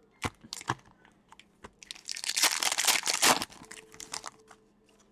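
A foil trading-card pack wrapper being torn open and crinkled: a dense crackling rush lasting about a second and a half near the middle, after a few light clicks of cards and packs being handled.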